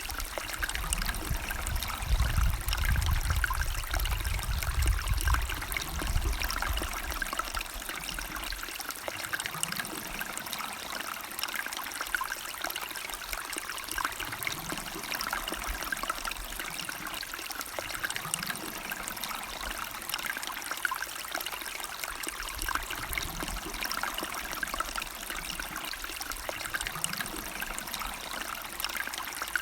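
River water flowing and trickling steadily, a continuous rushing hiss. A low rumble sits under it for the first few seconds and then fades.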